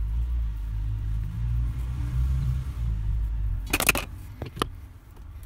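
Rotary pipe cutter being turned around a copper gas pipe, a low steady rumbling scrape as the wheel cuts in. A bit under four seconds in the cut goes through and the offcut comes away with a few sharp metallic clicks, and another click follows about half a second later.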